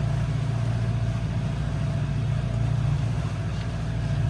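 Aluminium catamaran's engine running steadily while motoring, a constant low drone.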